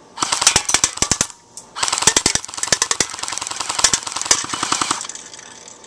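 M14 airsoft rifle firing on full auto: two bursts of rapid, evenly spaced shots, the first about a second long and the second about three seconds long after a short pause.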